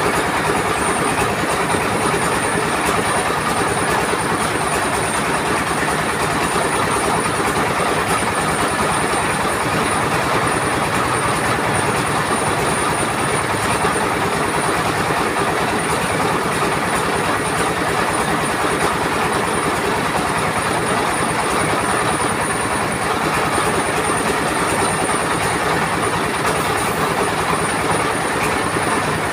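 Mobile rice mill running: the engine and belt-driven huller make a steady, loud mechanical din with a fast rattling rhythm and a steady high whine over it.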